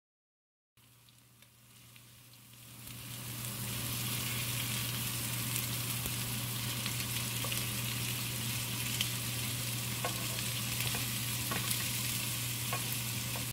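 Meat and king oyster mushrooms sizzling in oil in a frying pan, with scattered small pops. The sizzle swells over the first few seconds and then holds steady over a low, steady hum.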